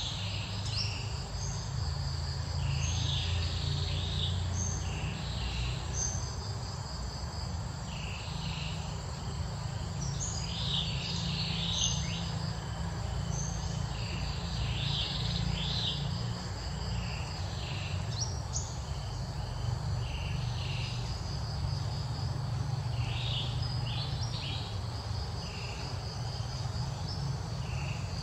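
Insects chirping in repeated bursts of high trills, returning every few seconds, over a steady low rumble.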